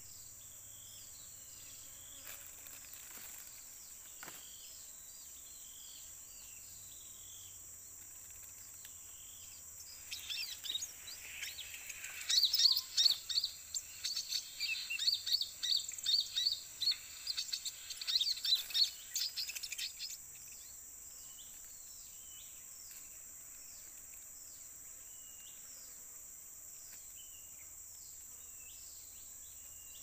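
Small birds chirping with short whistled notes over a steady high-pitched insect drone. From about ten seconds in, for about ten seconds, comes a louder, dense run of rapid high chirps.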